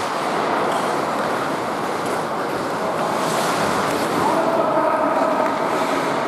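Steady ice-rink ambience during hockey play: the continuous scrape and hiss of skates on the ice in a large echoing arena.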